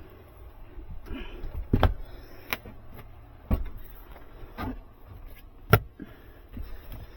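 Irregular knocks and clicks, about five of them, with the loudest near the end, over a steady low hum.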